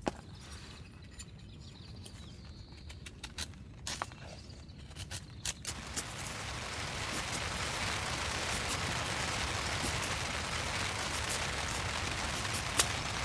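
Scattered light taps and clicks, then, a little under halfway through, a steady rain hiss sets in and carries on to the end, with a sharp tap near the end.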